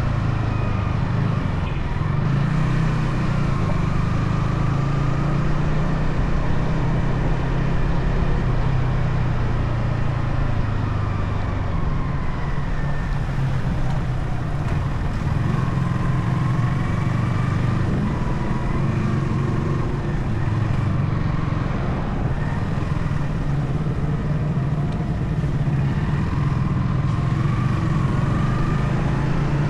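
Yamaha XSR155's stock single-cylinder engine and exhaust while riding, its pitch rising and falling with the throttle.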